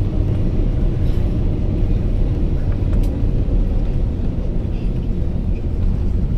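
Cabin noise of an Airbus A350-900 taxiing, its Rolls-Royce Trent XWB engines at low taxi power: a steady low rumble, heard from inside the passenger cabin.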